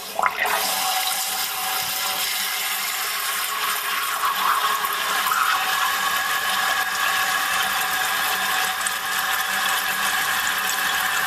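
Toilet tank refilling: water rushes in through the float-ball fill valve and splashes into the tank with a steady hiss that starts suddenly. A faint whistle joins it about four seconds in.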